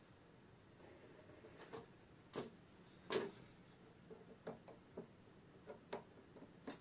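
Irregular small clicks and taps of a screwdriver and metal clock parts being handled as a clock's movement is taken apart. The loudest comes about three seconds in.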